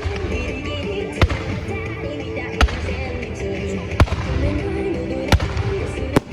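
Fireworks bursting with sharp bangs, five in all, about one every second and a half, over music playing steadily.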